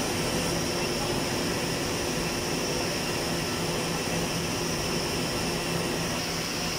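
Titan rotor spinning machine running: a steady, unchanging hum and hiss with a constant high whine over it.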